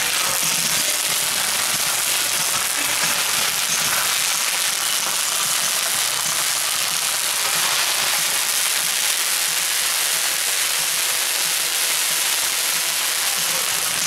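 A ground fountain firework burning with a steady hissing crackle.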